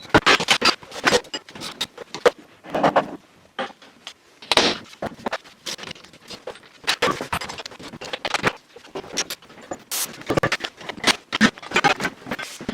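A rapid, uneven run of knocks, clicks and scrapes from hand tools and metal car parts being worked on.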